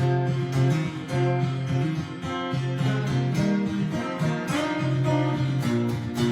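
Gibson short-scale acoustic guitar strummed in a steady country rhythm, with a low bass note under the chords, in an instrumental break with no vocals.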